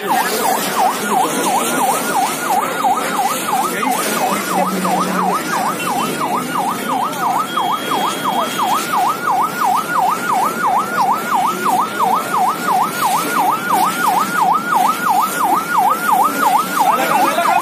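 Emergency vehicle siren on a fast yelp, its pitch sweeping up and down about three times a second without a break.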